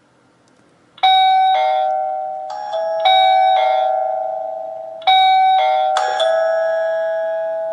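Vanbar V7 wireless doorbell's plug-in chime unit plays its electronic ding-dong tune about a second in and keeps repeating it, each note struck and fading away. The ringing shows the chime has just paired with the doorbell button.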